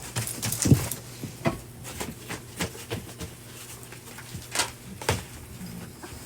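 Scattered light clicks and taps at an irregular pace, over a low steady hum.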